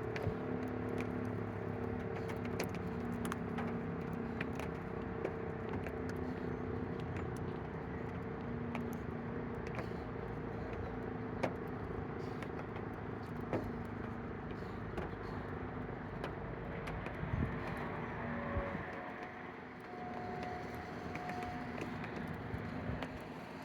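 Outdoor traffic ambience: road vehicles running, with a steady low hum and scattered small clicks. It eases off about nineteen seconds in.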